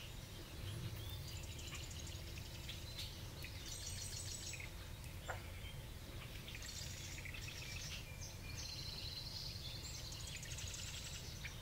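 Distant small songbirds singing in several bursts of high, buzzy trills, with one short falling call about five seconds in, over a steady low background rumble.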